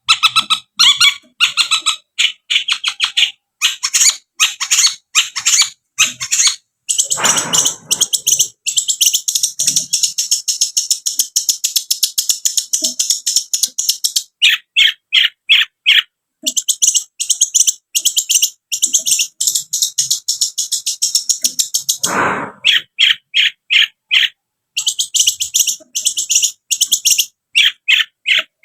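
Long-tailed shrike (cendet) singing a fast, chattering song of rapidly repeated high notes and buzzy trills. Two harsh rasping calls break in, about seven seconds in and again about 22 seconds in.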